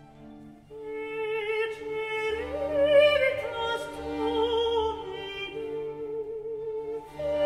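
Background music: a slow classical piece in an operatic style, with long held notes that waver in pitch over strings.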